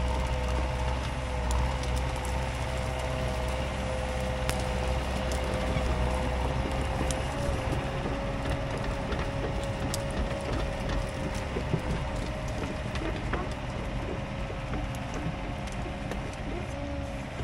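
Compact excavator's diesel engine running under load with a steady hydraulic whine, while the ripper tooth tears at a stump, giving scattered sharp cracks and snaps from the roots.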